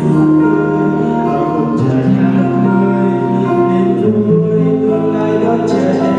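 A young man singing a Vietnamese song through a microphone over musical accompaniment, holding each note for about a second before moving to the next.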